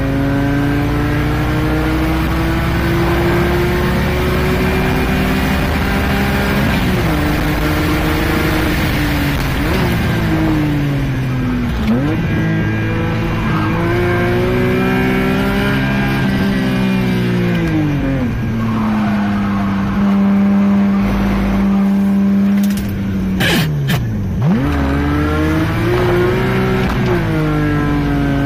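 Car engine heard from inside the cabin, driven hard around a track at full throttle to about 7,000 rpm. Its pitch climbs under acceleration and drops at each upshift, falls under braking with downshifts, and holds one steady note for several seconds in the middle. A brief cluster of sharp clicks comes near the end.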